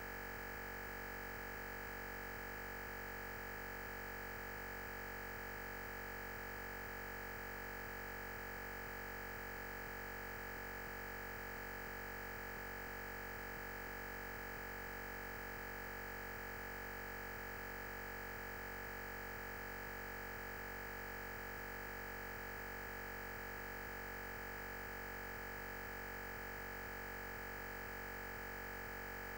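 Steady electronic noise: an unchanging hiss with a constant high-pitched tone running through it, and no speech.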